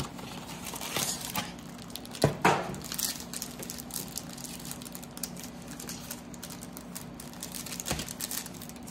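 Cardboard trading-card box being opened and its foil Prizm packs handled: crinkling, rustling and light scattered clicks, with one louder knock a little over two seconds in.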